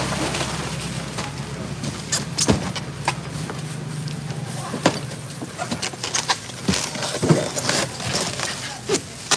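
Styrofoam seafood boxes being handled, set down and taped shut, with a string of sharp knocks, squeaks and crackles. A steady low hum sits under it and fades about four seconds in.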